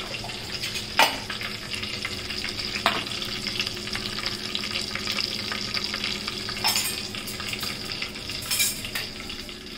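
Curry leaves, fennel seeds, mustard seeds and urad dal sizzling steadily in hot sesame oil in a stainless steel pan, with a few sharp clicks and pops scattered through.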